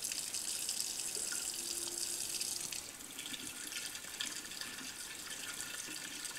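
Tap water rushing steadily through a faucet-mounted water aspirator, which is turned on to draw excess water out of the gas-collection bowl. The hiss eases a little about three seconds in.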